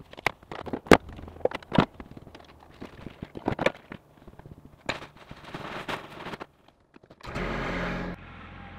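Scattered sharp knocks and clatters as a coil of black poly pipe and a plastic well pressure tank are handled and set down on a compact tractor. About seven seconds in, the tractor's engine starts up suddenly and runs steadily.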